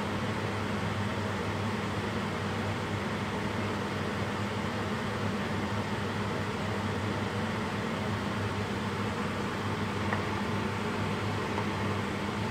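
A fan running steadily: a low hum under an even rush of air.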